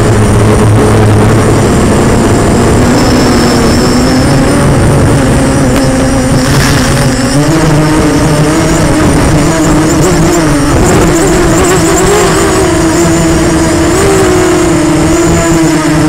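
Quadcopter's electric motors and propellers running loud and close to the microphone, a steady whine over a noisy rush whose pitch wavers and rises a little partway through as the throttle changes.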